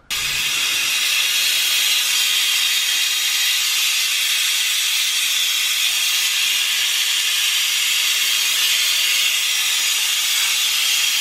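Vacuum brake bleeder hissing steadily as it sucks brake fluid out through the rear brake caliper's bleed nipple.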